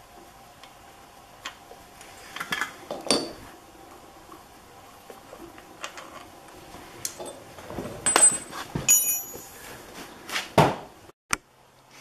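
Irregular clicks and metallic clinks of a combination wrench working the axle retaining bolt on a 1973 Honda CB750K's front fork as it is loosened, with a few louder clanks and a short metallic ring about two-thirds of the way through.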